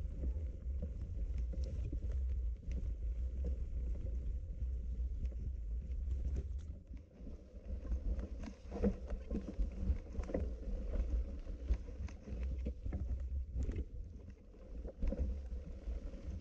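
Low rumble of wind buffeting the microphone, with scattered rustling and light clicks. It eases briefly about seven seconds in and again near the end.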